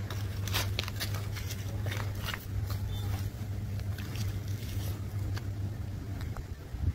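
A steady low mechanical hum, like a motor running, with scattered light clicks and scrapes in the first half.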